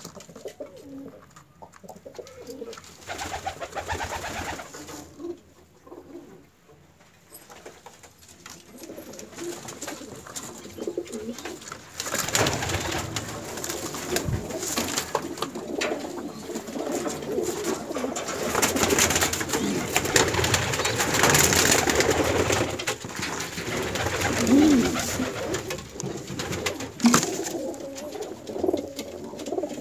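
Domestic pigeons cooing in their loft's wooden nest boxes. Through the second half, bursts of close rustling and scuffling noise are the loudest sound.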